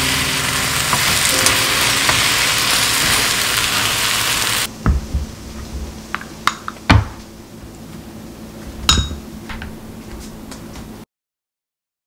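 A cabbage-and-egg pancake sizzling steadily in a rectangular frying pan. About five seconds in the sizzle stops abruptly, leaving a quieter stretch with a few light clicks and knocks and one ringing clink as bread and jam are prepared on a wooden board. The sound cuts off completely about a second before the end.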